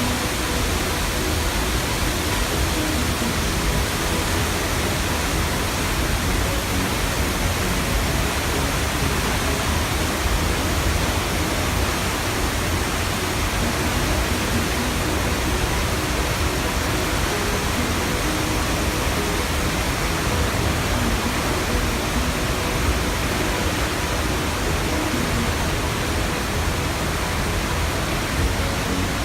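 Waterfall's water falling and rushing as one loud, steady noise that does not change.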